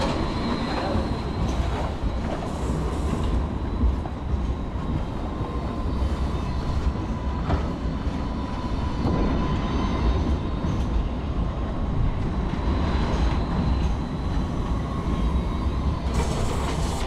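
Steady low rumble of a moving vehicle, with a faint high whine running through it.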